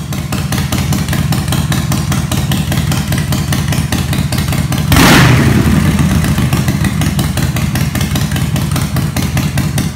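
Harley-Davidson V-twin motorcycle engine running at idle with an even beat of firing pulses. About halfway through comes a sudden loud burst, the loudest moment, that dies away over the next second while the idle goes on.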